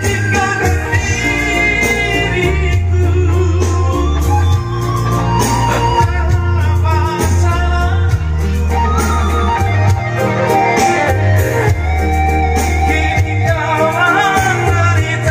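A man singing into a microphone over backing music, played loud through a PA sound system whose subwoofers carry a heavy bass line.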